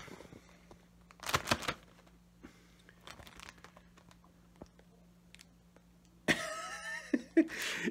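Rustling and knocking of a handheld phone being moved and swung about, loudest about a second in, over a faint steady hum. Near the end comes a short throat sound, like a cough.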